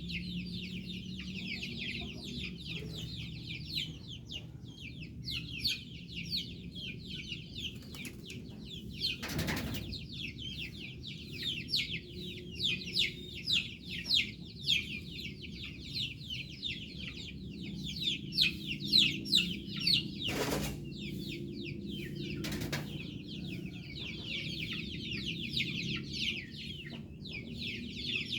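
A flock of chickens clucking, over a dense high-pitched chirping that runs throughout. A few brief thumps stand out, about ten seconds in and twice around twenty seconds in.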